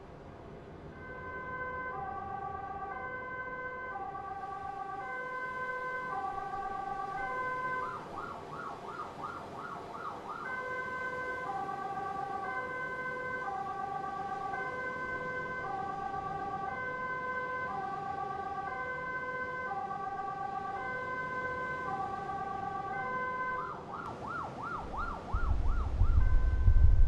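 Two-tone emergency-vehicle siren alternating evenly between a high and a low pitch, each tone about 0.7 s long, fading in during the first couple of seconds. Twice it switches briefly to a fast warble before returning to the two-tone pattern. Near the end a loud low rumble comes in.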